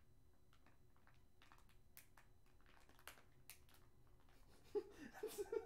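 Faint clicks and taps of small objects being handled, then a few short, louder pitched sounds close together near the end.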